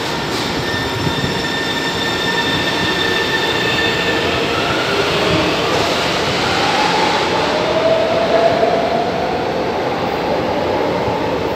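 São Paulo Metro train pulling out of the platform: a steady running rumble, with an electric whine that rises in pitch from about five seconds in as the train picks up speed.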